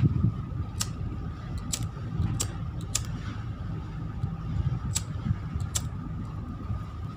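Steady low rumble of a passenger ship underway, with a faint steady whine. Over it comes a series of sharp ticks, irregularly about a second apart, from footsteps along the ship's side deck.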